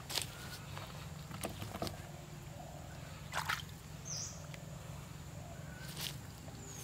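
Short splashes and sloshes of hands and a hook working in shallow pond water and mud, over a steady low hum.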